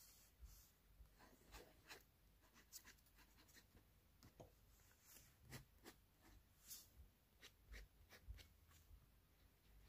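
Faint scratching of a fountain pen nib on paper, in short, irregular strokes as a drawing is inked.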